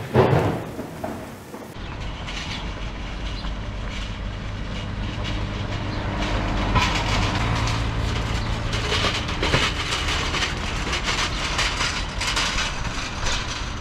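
A vehicle on the move: a steady low rumble with constant rattling and knocking, which grows busier in the second half.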